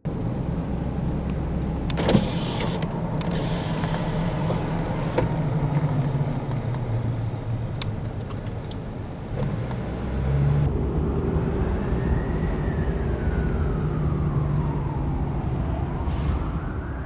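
Steady rumble of a car engine running, with a few sharp clicks about two seconds in. From about eleven seconds, a siren wail rises and falls slowly over it.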